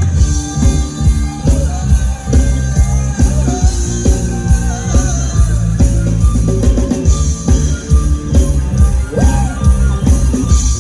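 Loud rock music from a live band playing an instrumental passage between sung lines: drums and bass drive a steady beat under a melody line that bends in pitch a little after the middle.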